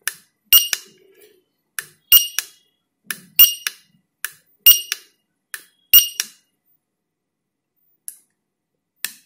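Small tactile push button on a microcontroller controller board pressed repeatedly, stepping through the settings in edit mode: a run of sharp clicks, about one press a second, with fainter clicks around each, then two faint clicks near the end.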